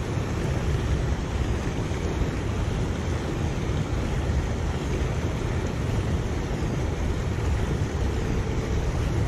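Steady rush of water pouring into a foam-covered river pool, mixed with wind buffeting the microphone.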